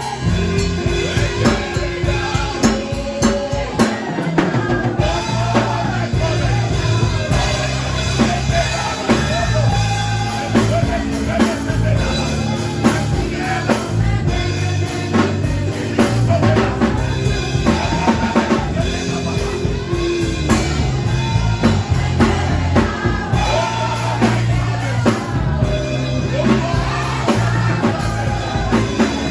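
Music with a full drum kit, bass and singing, at a steady beat.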